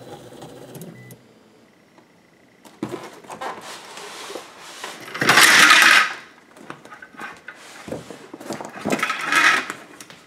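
A 3D printer's stepper motors whir steadily for about a second, then stop. After a short quiet, hands rummage inside the printer frame: rustling and knocking of parts and cables, loudest about five seconds in and again near the end.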